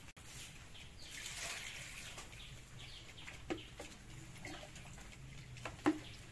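A plastic mug dipped into a plastic bucket of water and lifted out, with light sloshing and two knocks against the bucket, the louder one near the end.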